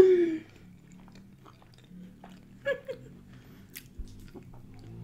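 A woman chewing a mouthful of pie and mash, with soft wet mouth clicks. A short hum falling in pitch opens it, and a brief second hum comes about two and a half seconds in.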